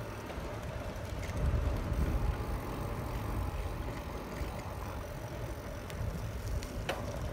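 Bicycle riding along a city street, heard through a phone's microphone: uneven low rumble of wind and tyres over a steady faint hum. A single sharp click with a brief squeak comes near the end.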